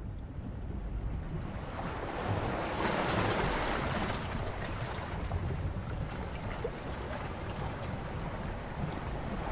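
Sea waves washing over shore rocks, one wave surging in about two to three seconds in and easing off, over a steady low rumble.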